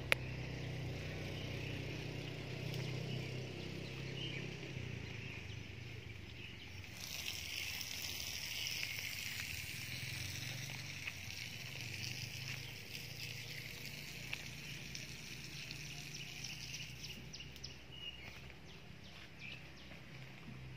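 Outdoor rural ambience: a steady high drone that grows louder through the middle, over a low hum.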